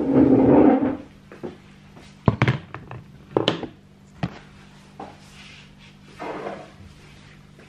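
Handling noise close to the microphone: a loud rustle in the first second, then several sharp knocks and thunks. A room door is opened about six seconds in.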